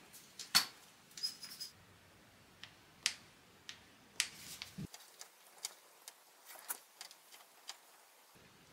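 Scattered light clicks and taps from handling a plastic squeeze bottle of PVA wood glue and small wooden cubes, the sharpest click about half a second in.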